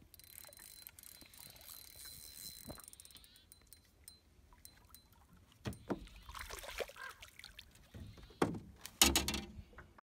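A fishing reel being cranked with a faint whirring whine. A small largemouth bass then splashes at the surface as it is brought to the boat, with loud knocks and splashing near the end as it is landed.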